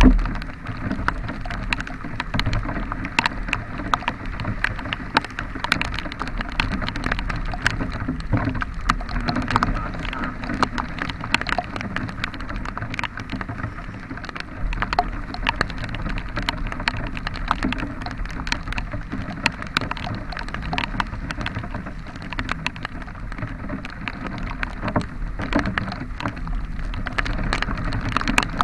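Heavy rain, drops ticking densely and unevenly straight onto the bare camera, over the steady low hum of a vehicle engine running.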